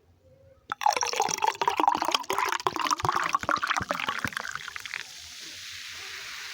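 A drink being poured into a glass. It starts with a sharp click, and the pour runs loud and crackly for about four seconds. It then gives way to a steady hiss that slowly grows louder.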